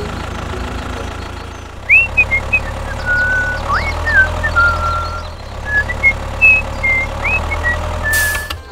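Mini model tractor engine idling with a steady low hum. From about two seconds in, short high whistled chirps come and go over it.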